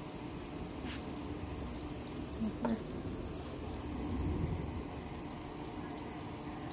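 Steady sizzle of floured chicken pieces frying in a pot of hot oil, with a few faint clicks and short knocks from the nearby handling of the coated chicken.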